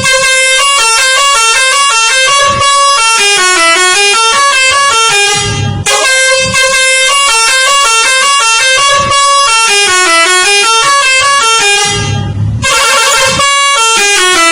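A multi-tone 'telolet' bus horn playing its loud stepping melody of horn notes. The tune repeats about every six seconds, with short breaks between repeats.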